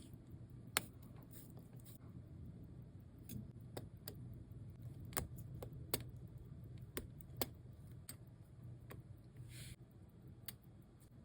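About a dozen small, sharp, irregularly spaced clicks and taps of watchmaker's tools against a wristwatch movement, over a steady low hum.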